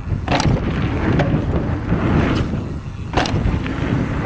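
Wind rushing over the microphone and the rumble of a Stevens E-Inception e-mountain bike riding down a rough bikepark trail. A few sharp clacks come through, the loudest about half a second in and about three seconds in.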